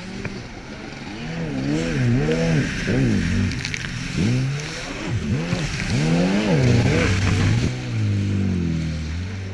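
Personal watercraft engine revving up and down again and again as it runs over choppy waves, over a hiss of spray and wind. Near the end it settles to a steadier, lower drone.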